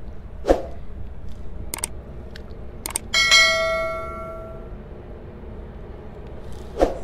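Subscribe-button sound effect: a couple of sharp clicks, then a bell ding about three seconds in that rings out and fades over about a second and a half. A dull thump comes just after the start and another near the end.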